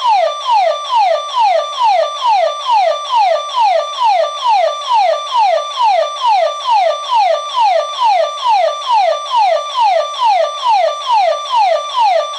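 Home security system's burglar alarm siren sounding, a loud electronic tone that holds briefly and then falls in pitch, repeating about twice a second without a break. It signals a tripped intruder alarm.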